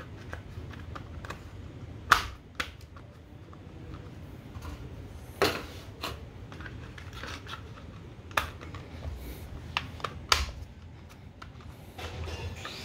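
Orange plastic solenoid covers being pressed and clipped onto a Mercedes 722.6 transmission valve body: a handful of separate sharp clicks and knocks, the loudest about two seconds in and about five and a half seconds in, over a low steady hum.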